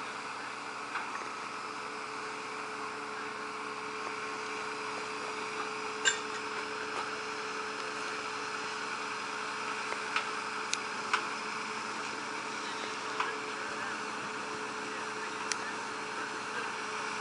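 Steady drone of heavy machinery running at a railway track-renewal site, holding one low tone, with about half a dozen short sharp clinks scattered through it, the loudest about six seconds in.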